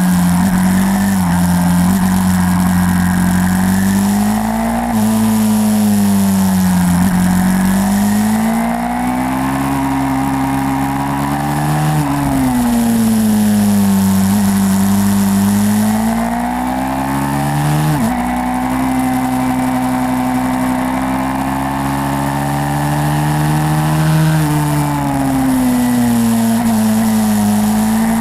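YCF 150 SM pit bike's single-cylinder four-stroke engine being ridden hard, its note rising and falling with throttle and gear changes. The pitch drops sharply a few times as the throttle is cut.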